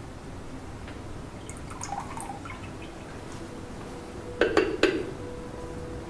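Faint trickle of tea being poured, then a few sharp clinks of a ceramic teacup against teaware about four and a half seconds in, leaving a faint ringing tone.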